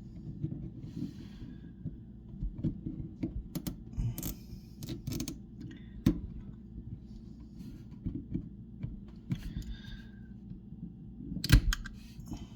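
Scattered clicks, taps and short scrapes of small plastic faucet parts being handled, as a plastic ring is worked off a Moen faucet cartridge. The sharpest click comes near the end.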